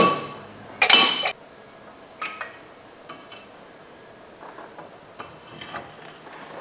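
Metal clanking as a brake caliper is handled and fitted over the brake disc. There is a loud metal clatter about a second in, a sharp clink a little after two seconds, then a few faint taps.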